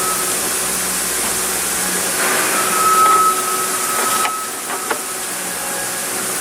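Old EVAP pressure sensor being pried out with a tool: a few sharp clicks a little after four seconds in. They sit over a steady hiss with a high whine that comes and goes.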